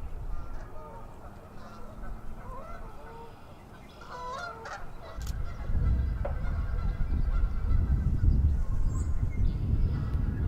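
Canada geese honking, a flock calling in short scattered honks that cluster about four to five seconds in. About halfway through, a low rumbling noise sets in and becomes the loudest sound.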